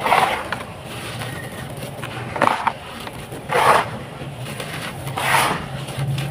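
Dry, dusty sand-cement mix crumbled and scraped by hand in a container, the grit sifting through the fingers in four gritty, crunching rushes: one at the start, then about two and a half, three and a half and five seconds in. A steady low hum runs underneath.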